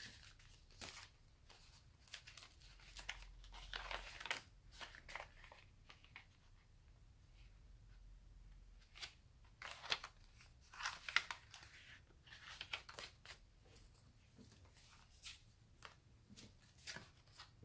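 Faint rustling and crinkling of paper as handmade junk-journal envelopes and pockets are handled, flipped and laid down on a wooden table, in scattered short rustles.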